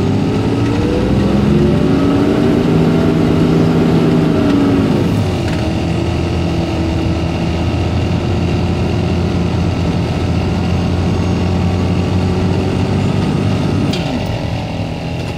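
A motor vehicle's engine revs up over the first couple of seconds and holds high, drops back about five seconds in, then runs steadily, easing off near the end.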